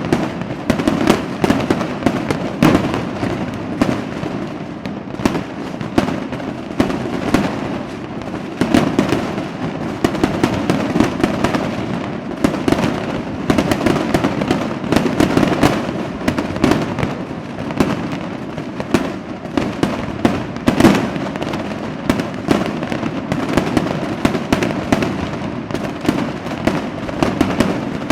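Fireworks display: a dense, continuous barrage of bangs and crackling, many explosions a second with no pauses, and a few sharper, louder booms standing out, the loudest about 21 seconds in.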